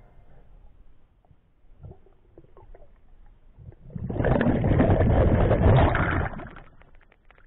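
Faint underwater clicks and knocks, then about four seconds in a loud rush of bubbling, churning water lasting about two and a half seconds as the camera breaks the surface, fading out near the end.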